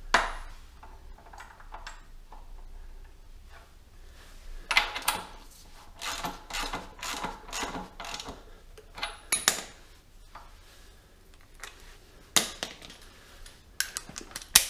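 Hand ratchet and socket working a motorcycle's front axle nut: runs of ratchet clicking and metal-on-metal clinks, busiest in the middle, then a sharp clatter near the end as the ratchet is set down on the floor.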